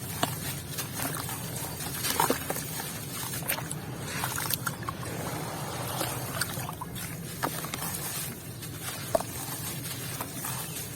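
Grainy white cement crunching and crumbling, a dense run of crisp crackles with a few sharper cracks, about two seconds in and again near the end.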